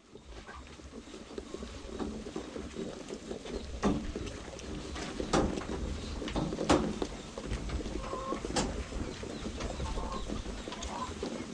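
Chickens clucking on a poultry farm over a low rumble, with a few sharp knocks or clicks through the middle.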